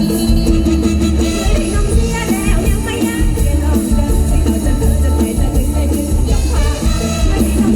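Mor lam music played loud, with a heavy pulsing bass and a wavering melody line over it.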